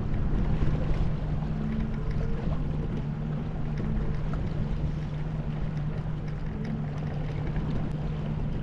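A fishing boat's motor running steadily at slow trolling speed, a constant low drone, with wind and water noise over it.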